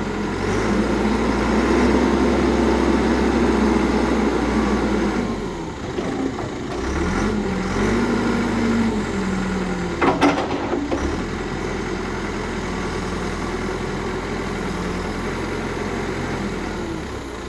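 CAT 416C backhoe's four-cylinder diesel engine running, its speed rising and falling in the first nine seconds, then settling to a steady idle. A couple of sharp knocks come about ten seconds in.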